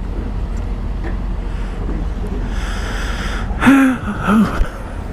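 A motorcycle engine idles with a steady low rumble. About three seconds in, the rider lets out a breathy sigh followed by a short two-part voiced groan.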